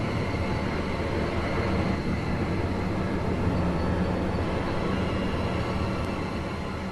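Steady rumbling mechanical drone with a low hum, like heavy machinery or a train.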